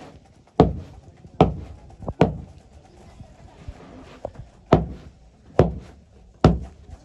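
A series of hard knocks: about six heavy strikes, each under a second apart, with a couple of lighter ones between.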